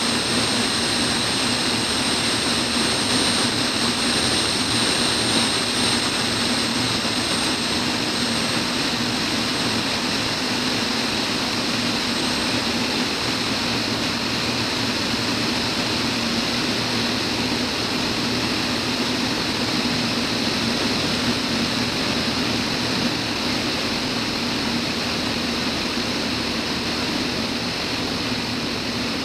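Steady drone of a Van's RV-10's piston engine and propeller in flight, mixed with rushing airflow noise.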